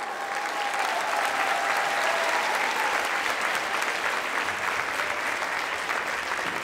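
Audience applauding: dense, steady clapping, with a faint drawn-out call from the crowd in the first couple of seconds.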